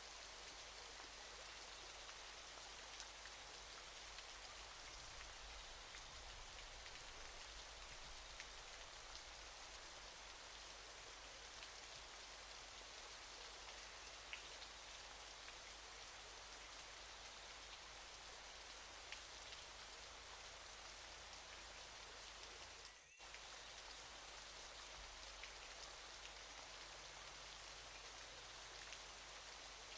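Faint, steady hiss of falling water from a waterfall, which briefly drops out about two-thirds of the way through.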